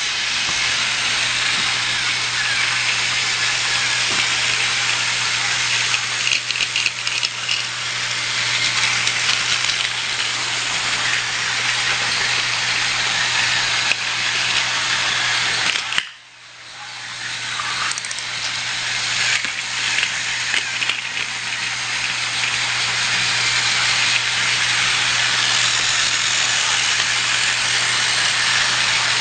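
Small electric motor of a battery-powered Trackmaster toy train whirring steadily, with a low hum under it. The sound cuts out suddenly a little past halfway, then builds back over a couple of seconds.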